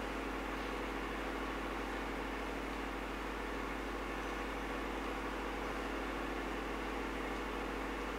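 A steady mechanical hum over a faint hiss, unchanging throughout.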